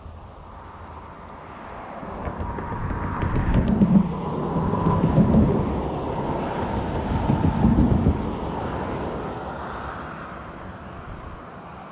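A vehicle passing on a road: a low rumble with a faint tyre hum that builds over a few seconds, stays loud through the middle and fades away near the end.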